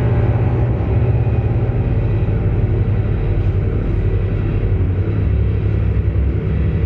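Dense, steady low drone of live experimental music. It is a loud rumbling wall of sound with its weight in the deep bass.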